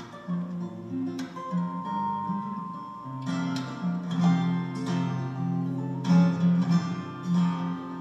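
Solo acoustic guitar played fingerstyle: a picked melody over held bass notes, with sharp strummed accents about a second in and several more through the second half.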